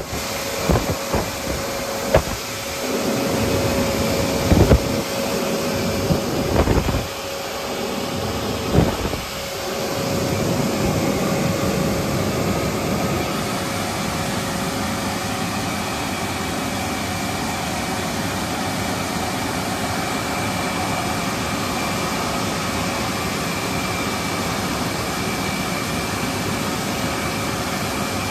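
Touch-free car wash air dryers blowing at the end of the wash, a loud steady rush of air with a steady whine in it. It surges unevenly for the first ten seconds or so, then runs evenly.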